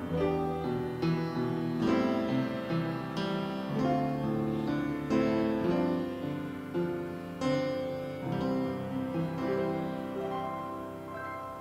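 Slow piano music: chords struck and left to ring, dying away near the end.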